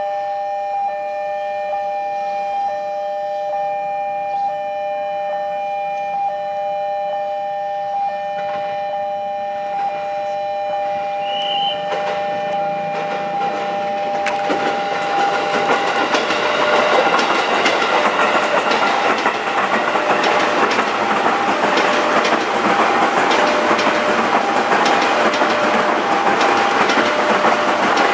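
Level-crossing warning signal sounding a steady two-tone ringing, then from about halfway a KRL Commuter Line electric multiple unit approaching and passing close by with rumbling and clattering wheels over the rail joints. The crossing signal keeps pulsing under the train noise.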